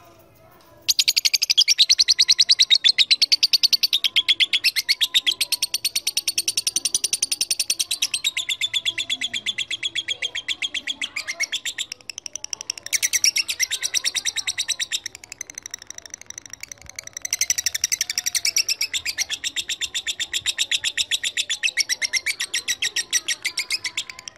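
Lovebird giving a long, very rapid chattering trill, the sustained chatter fanciers call 'ngekek panjang'. It starts about a second in and goes on almost without pause, with two short breaks partway through.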